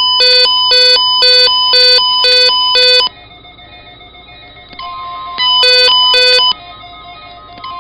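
Weather radio alert beeping for a NOAA Weather Radio required weekly test: a loud, harsh electronic beep repeating about twice a second, which stops about three seconds in. A steady tone comes in near five seconds, and two more beeps sound around six seconds.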